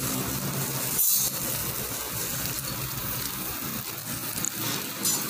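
Metal roasting skewers clinking over a charcoal grill: one sharp clink about a second in and a lighter one near the end, over a steady hiss.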